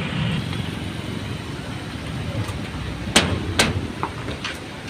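Road traffic running slowly, with two sharp metallic clanks about three seconds in and a few fainter knocks after: loose steel checker plates laid over an unfinished bridge deck knocking under weight.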